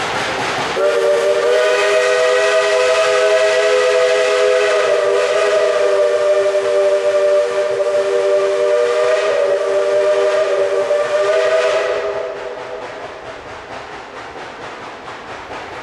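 Steam locomotive chime whistle sounding one long blast of several notes held together, lasting about eleven seconds, over the running noise of the train. The whistle cuts off, leaving the quieter rumble and hiss of the train moving away.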